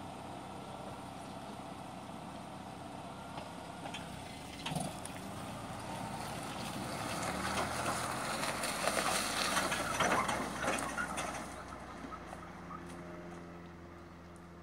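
Small truck running as its tyres roll over dried bean plants spread on a tarp, crushing them with dense crackling of pods and stalks that is loudest about nine to ten seconds in. This is threshing beans by driving over them. The crackling stops near the end, leaving a quieter engine hum as the truck moves off.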